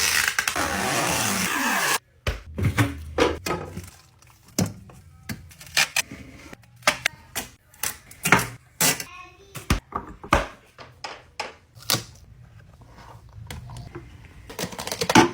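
Restocking clatter: irregular clicks, taps and knocks of packaged snacks and plastic containers being set down and arranged, after a loud rushing noise in the first two seconds.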